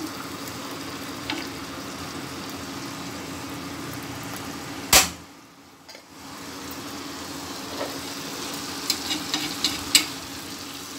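Fish pieces sizzling steadily in sesame oil on a dosa tawa, over a steady low hum. A sharp knock comes about five seconds in, and the sizzle drops away briefly after it. Near the end a flat steel spatula clicks and scrapes against the tawa a few times.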